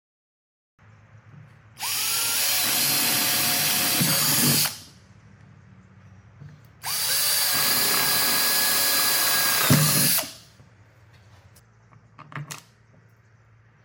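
Cordless drill run twice for about three seconds each, spinning up quickly and boring holes through a plastic bucket lid. A few light clicks follow near the end.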